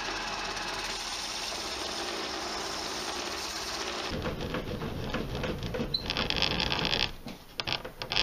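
Clarke 4-inch belt / 6-inch disc sander running with a laminated hardwood block pressed against the moving belt to sand its edges. The sound changes about four seconds in, turns harsher and higher for about a second near the two-thirds mark, then breaks up near the end.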